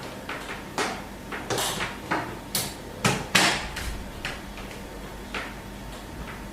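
Irregular clicks and knocks of a power cable and plug being handled and plugged into a soldering station, loudest a little past the middle.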